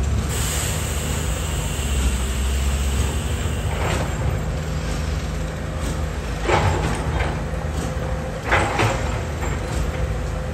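The diesel engine of a Caterpillar 320D hydraulic excavator runs steadily as it digs. A hiss is heard in the first few seconds. Sharp knocks of the bucket against earth and rock come about four seconds in, again at six and a half, and twice close together near the end.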